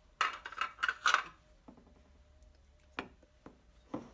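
Metal spoon scraping and knocking against a glass bowl while stirring oil into flour: a quick run of scrapes in the first second or so, then two single clicks later on.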